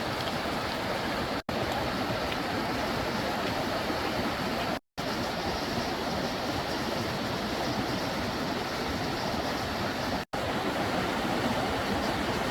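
Steady rushing of a mountain stream, an even wash of water noise, broken by three brief sudden drop-outs.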